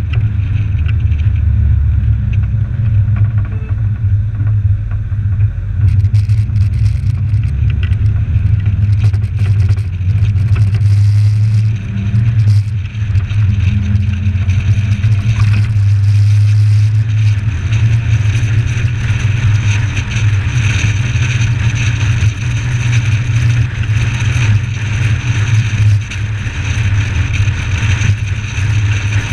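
Suzuki Samurai's four-cylinder engine running at a steady cruise, a constant low drone mixed with road and wind noise, picked up by a camera on the bonnet. The hiss of wind and tyres grows louder in the second half.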